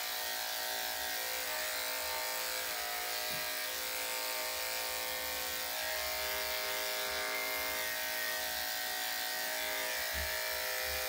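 Electric dog grooming clippers running steadily through a Yorkshire Terrier's coat, with an even, pitched motor hum at a constant level.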